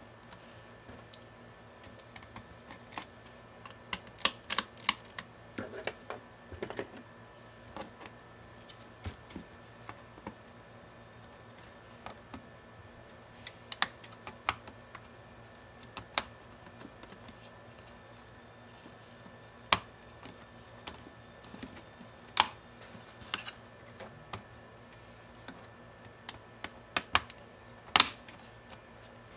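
Irregular clicks and taps of plastic keys and trim as hands press across a Lenovo ThinkPad E490 keyboard and work a small tool around its palm rest, with a few louder, sharper clicks in the second half.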